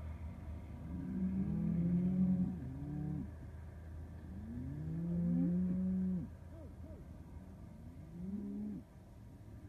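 Several cattle mooing: long, overlapping calls at different pitches in three bouts, about a second in, around five seconds in, and shortly before the end. A steady low rumble runs underneath.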